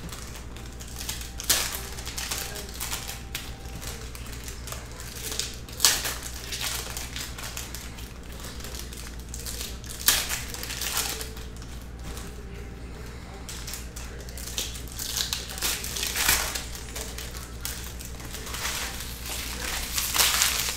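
Foil baseball-card pack wrappers crinkling and tearing open, with cards clicking as they are flipped and stacked. Short louder crinkles come about 1.5, 6, 10 and 16 seconds in, and a longer spell of crinkling near the end.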